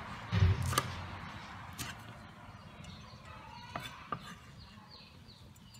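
Kitchen knife chopping herb leaves on a round wooden chopping block: one heavy thump about half a second in, then a few sparse sharp taps of the blade on the wood.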